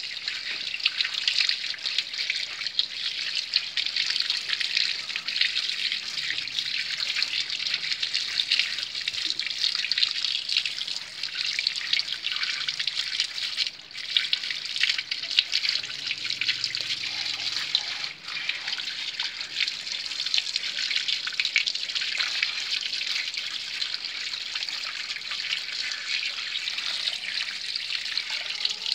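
Water running and splashing as hands wash raw fish, squeezing it in a plastic bag under the stream, with a steady crackly patter and drips.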